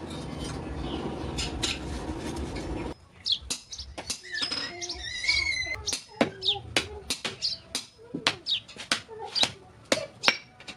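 Small birds chirping over and over in short falling notes, mixed with sharp clicks or taps. A steady noisy hum cuts off about three seconds in.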